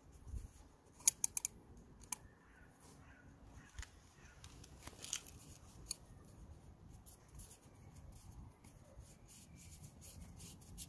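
Small clicks and rubbing from fingers working a new rubber O-ring onto a plastic oil filter housing cap: a quick cluster of sharp clicks about a second in, then scattered single clicks and faint ticks.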